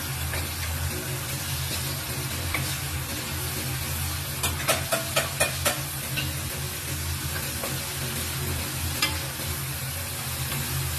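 Thin strips of meat sizzling in a frying pan as a wooden spatula stirs them, with a steady low hum underneath. About four seconds in comes a quick run of about six sharp knocks of the spatula against the pan, and one more knock later.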